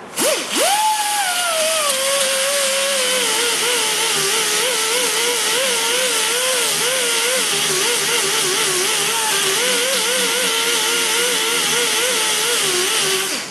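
Small rotary tool with an 80-grit sanding disc spinning up and grinding plastic: its whine jumps up at the start, then drops and wavers as the disc is pressed on and eased off, over a steady hiss, and cuts off suddenly near the end.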